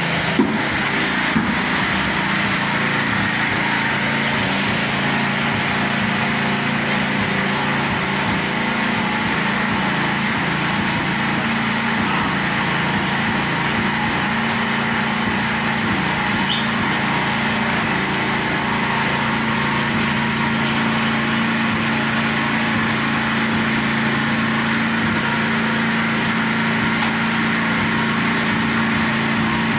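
Concrete mixer's small petrol engine running steadily at one constant speed. A couple of sharp knocks stand out in the first second or so.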